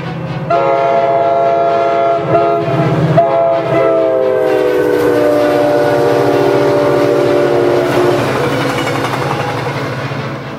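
Train air horn blowing loudly over the steady rumble of a moving train, cut briefly once, then held long with its pitch slowly sliding down before it stops, leaving the train's rumble.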